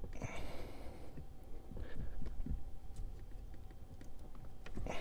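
A gloved hand handling and tugging at plastic wiring-harness connectors on a car audio amplifier: scattered small clicks, low thumps and short rustles.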